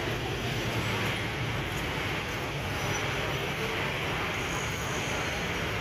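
Steady background din of a busy fruit market, an even wash of noise with no single sound standing out.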